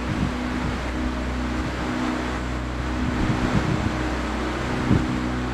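Tour boat's motor running with a steady hum, and a few brief low thumps from wind on the microphone.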